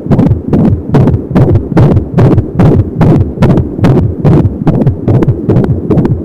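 Fetal heartbeat at 25 weeks' gestation picked up through the belly by an Angelsound handheld fetal Doppler: fast, regular pulsing at about 170 beats a minute.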